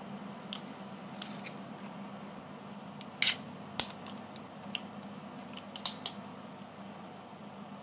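Plastic screw cap being twisted off a bottle of red soft drink: one brief sharp hiss about three seconds in, then a few light plastic clicks and cracks as the cap turns.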